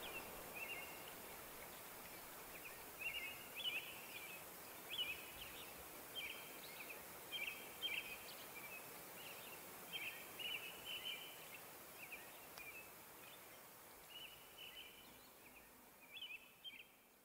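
Faint high bird chirps, short and repeated every second or so, over a quiet steady hiss.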